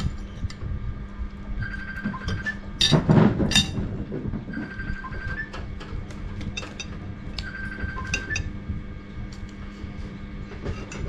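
Light background music, a short melodic phrase repeating about every three seconds, with metal spoons clinking against ceramic plates and a louder clatter about three seconds in.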